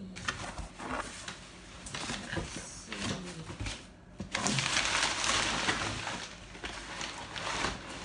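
Cardboard box flaps and inserts being handled, with scattered scrapes and knocks. About four seconds in comes a loud rustle and crinkle of brown packing paper being pulled out of the box, fading over the next few seconds.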